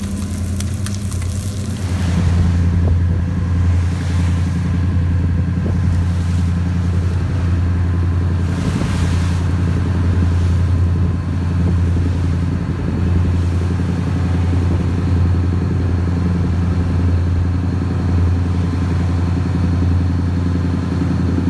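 Power yacht's engines running with a steady low drone while the boat is underway; a fish fillet sizzles in a frying pan in the first couple of seconds before the drone gets louder.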